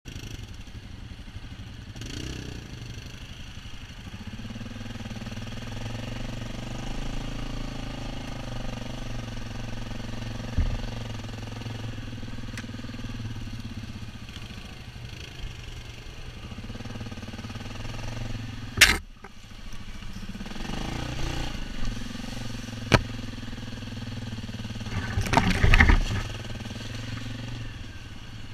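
ATV engine running steadily on a rough forest trail. Several sharp knocks and bangs cut through it. The loudest comes about two-thirds of the way through, another follows a few seconds later, and a cluster of clatter comes near the end.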